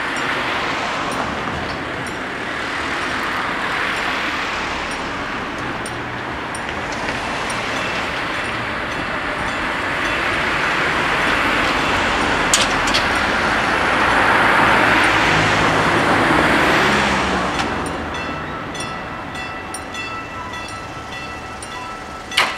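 Cars driving over a road–rail level crossing, their tyre and engine noise swelling and fading as each passes, loudest around the middle. As the traffic dies away, the crossing's warning bell rings steadily while the barriers lower, with a few sharp clanks near the end.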